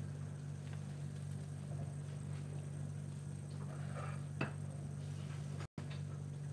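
Steady low hum of a quiet kitchen, with one light click about four and a half seconds in as the sandwich and board are handled.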